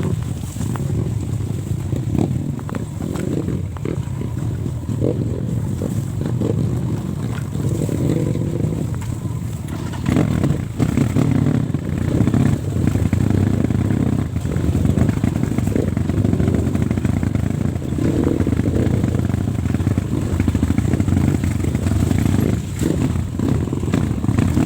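Trail motorcycle engines running and revving unevenly, getting louder about ten seconds in.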